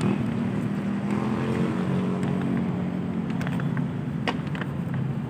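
Street traffic: a motor vehicle's engine running close by, a steady low hum whose pitch eases down about halfway through. A brief sharp click about four seconds in.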